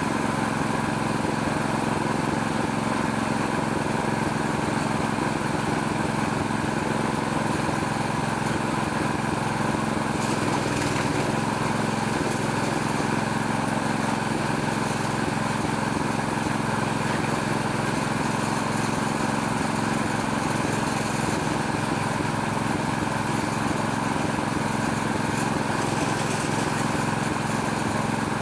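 Small Robin-brand petrol engine running steadily at an even speed, driving a homemade oil palm loose-fruit machine.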